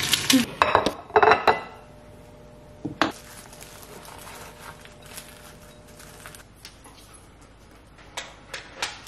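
Kitchen utensils clinking and scraping against a frying pan and a ceramic plate. There is a quick cluster of sharp clinks in the first second and a half, one more about three seconds in, and a few light taps near the end.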